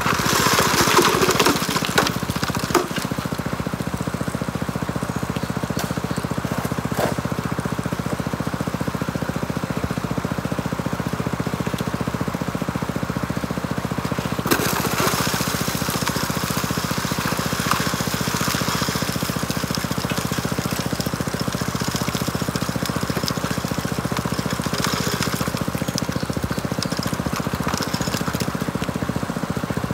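Small petrol engine of the water pump feeding a high banker, running steadily at an even speed. Louder stretches of rushing, crackling noise come over it near the start and again from about halfway in.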